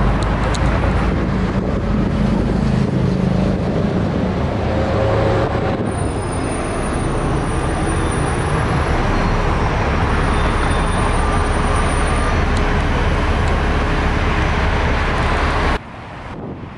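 Steady, loud road noise from a moving open-top sightseeing bus: its engine running and the surrounding city traffic, heard from the open upper deck. The level drops abruptly near the end.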